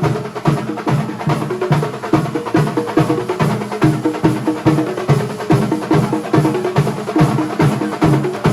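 Kerala thambolam drum ensemble playing a fast, steady beat, with short pitched melody notes over the drumming.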